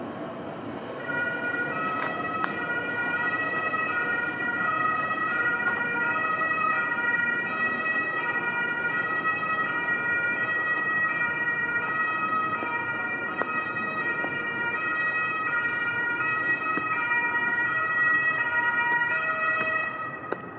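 Two-tone siren of an emergency vehicle, its note switching back and forth between two pitches over distant city noise. It starts about a second in and cuts off near the end.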